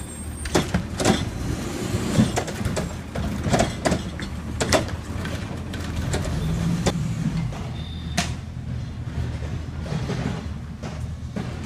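Curotto-Can garbage truck engine running, with a run of sharp metal clanks and bangs in the first five seconds as a black cart is emptied into the can, then the truck pulls away with one more hard knock a little after eight seconds.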